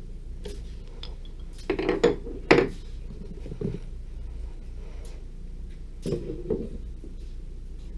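Metal clunks and clinks from setting up a mini wood lathe: the tailstock being worked and a turning gouge lifted from its rack. A cluster of loud knocks comes about two seconds in, a lighter one a little later, and a few more knocks near the end, all over a steady low hum.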